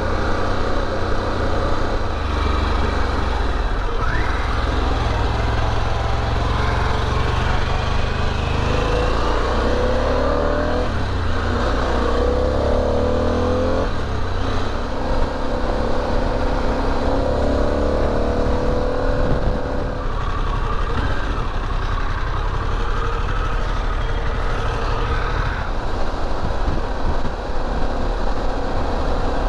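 Motorcycle engine running under way, heard through a helmet-mounted mic with wind rush, its pitch shifting up and down as the bike changes speed.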